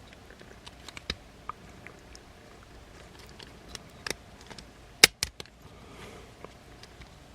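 Plastic parts of a Transformers figure clicking and tapping as they are handled and rotated: scattered small clicks, with two sharper snaps close together about five seconds in.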